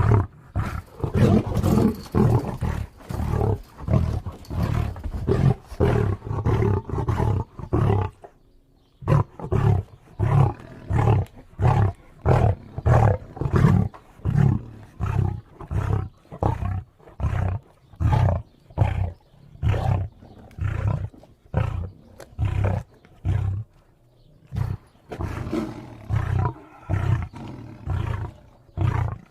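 Lion roaring: a long series of short, deep grunts, about three every two seconds, with a brief pause about eight seconds in.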